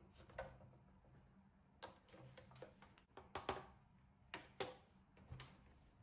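Faint, irregular plastic clicks from a Baratza Sette 270 grinder's burr carrier and adjustment collar being twisted by hand to release the burr assembly.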